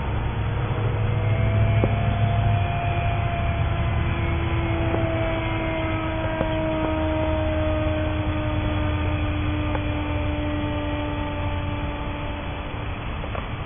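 Electric motor and 7x5 propeller of an RC foam plane (Turnigy 1650KV brushless motor) whining in flight, the whine sliding slowly down in pitch, over a steady low hum.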